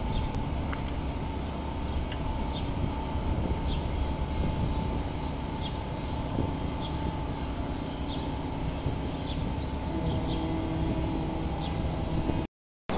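Open-air ambience: a steady low rumble with a small bird chirping briefly every second or so. A faint steady hum joins about ten seconds in, and the sound cuts out for a moment near the end.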